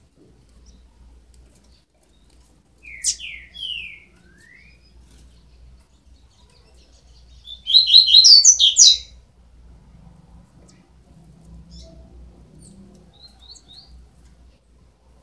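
Twelve-day-old double-collared seedeater (coleiro) chicks chirping. A few short downward-sliding chirps come about three seconds in, a loud rapid run of high chirps around eight seconds, and a few faint chirps near the end.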